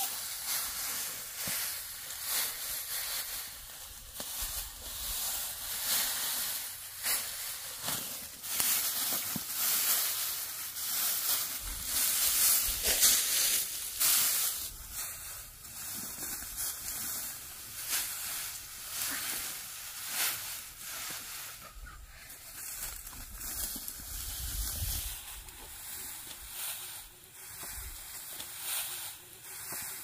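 Dry cut rice stalks rustling and crackling as armfuls of harvested rice are gathered up and carried, in an uneven run of crackles.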